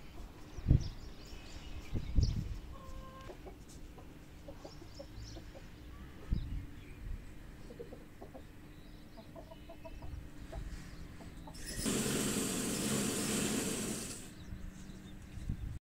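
White silkie hen clucking softly under a wire basket cover, with a few heavy dull thumps in the first seconds and a rush of noise lasting about two seconds near the end.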